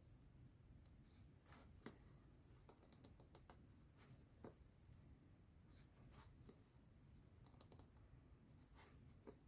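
Faint, irregular clicks and short scratchy rasps of a needle punching through fabric and thread being drawn through during hand embroidery.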